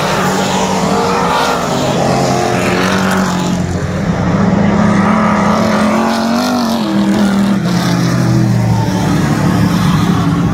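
A pack of dirt track race cars running at speed, several engines overlapping, their pitches rising and falling as they come through the turn.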